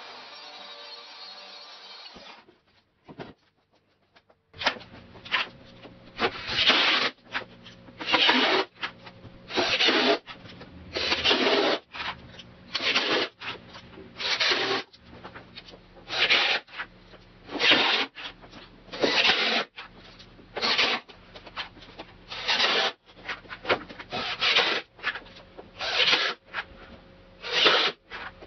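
Repeated rasping, rubbing strokes on plywood, one about every second and a half, starting about four and a half seconds in after a short quiet spell.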